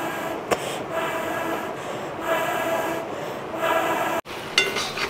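Breath blown through a long fire-blowing pipe into a wood-fire hearth in repeated puffs of about a second each, each puff carrying a hollow tone from the tube. Near the end, after a sudden break, a few metal clinks of a spatula against a wok.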